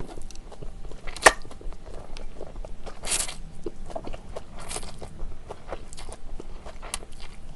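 Stir-fried yakisoba noodles slurped into the mouth in several short slurps, with chewing and small wet mouth clicks between. A single sharp click about a second in is the loudest sound.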